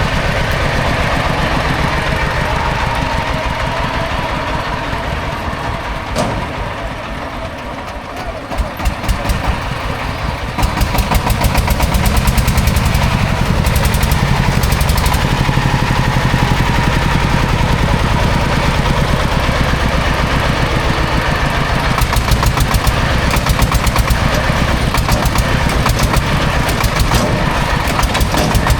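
A heavy vehicle's engine running with a fast, even knocking beat. It eases off and grows quieter for a few seconds, then picks up loud again about ten and a half seconds in and keeps running steadily.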